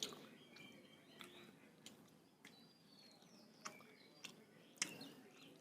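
Quiet eating sounds: soft chewing with sharp mouth clicks and smacks every half second to a second, as rice and egg curry are eaten. Faint high chirps, like small birds, sound in the background.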